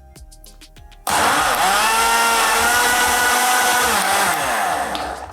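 Countertop blender motor switched on about a second in, running loud with a whine that climbs as it spins up and drops as it winds down, then cut off just before the end. It is chopping peppers, onions and scotch bonnet into a coarse, semi-smooth paste.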